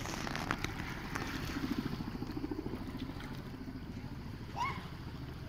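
Distant helicopter hovering over the sea, its rotor beating in a fast low pulse, with wind noise on the microphone. A short rising call cuts in about four and a half seconds in.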